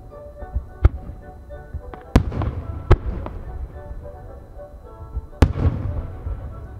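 Aerial firework shells bursting: four sharp, loud bangs, one about a second in, two close together around two to three seconds, and one past five seconds, each followed by a rolling echo. Music plays steadily underneath.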